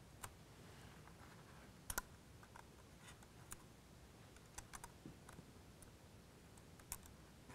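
Near silence with faint, scattered small clicks and ticks as fingertips slide two flat flex cables into the open connectors of an iPad 1's logic board.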